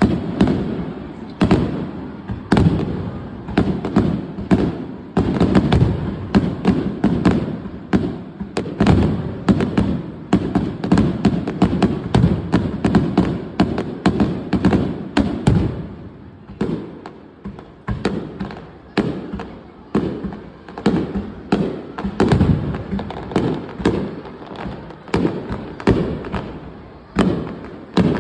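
Fireworks display: shells bursting in rapid succession, several bangs a second, each trailing off in an echo. The bangs ease off briefly about halfway through, then come thick again.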